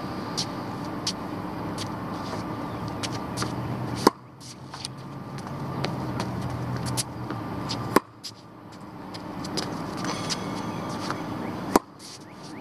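Tennis racket striking the ball three times, about four seconds apart, each a sharp pop; between the hits, faint ticks over a steady hum of road traffic.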